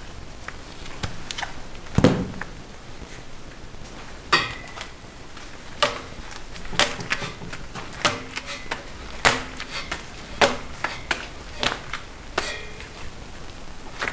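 Hard sugar candy and tools knocking on a work table during handmade candy making: irregular sharp knocks and clicks, some with a short ringing tone, about a dozen in all, the heaviest a dull thump about two seconds in.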